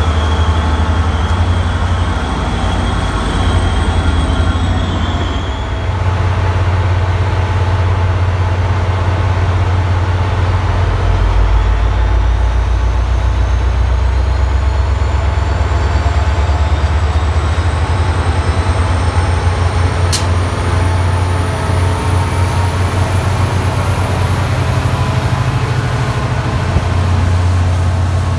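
Diesel commuter-rail locomotive running with a deep, steady rumble. A high steady tone cuts off about six seconds in, and a faint high whine slowly rises in pitch through the second half, with one sharp click about twenty seconds in.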